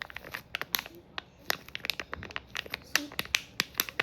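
A fake Taba squishy being squeezed and handled, crinkling with many quick, irregular sharp crackles.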